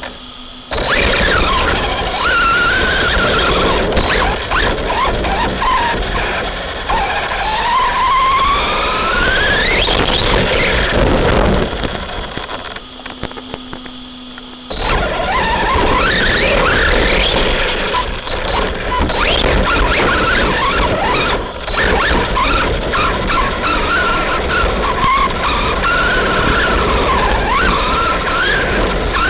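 Arrma Big Rock RC monster truck driving hard: its electric motor whines up and down in pitch with the throttle over a steady rush of tyre and dirt noise. The sound drops back for a couple of seconds around the middle.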